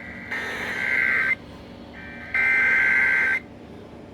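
Emergency Alert System header tones: three harsh, buzzy data bursts of about a second each, spaced a second apart, breaking into a radio broadcast to open an emergency alert.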